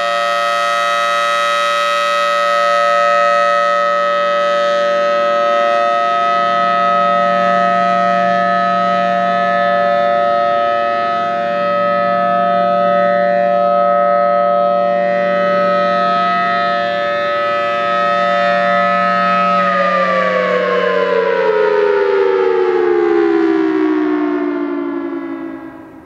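Federal Sign & Signal Thunderbolt 1003 outdoor warning siren sounding its steady alert tone, a loud chord of several held tones. About twenty seconds in it winds down, the pitch sliding steadily lower and the sound fading as the rotor slows at the end of the test.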